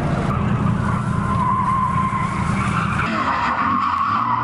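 Car tyres squealing in a long, sustained drift slide, over the car's engine running hard. The engine note drops away about three seconds in while the squeal carries on.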